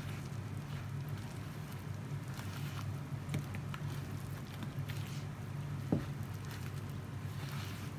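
A gloved hand kneading soft cookie dough and flour in a plastic bowl: soft squishing and patting, with scattered small clicks and one sharper knock about six seconds in. A steady low hum runs underneath.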